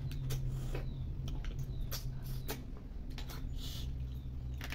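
Small cooked snails being sucked out of their shells: a string of short sucking clicks and slurps, with shells clicking against a steel plate, over a steady low hum.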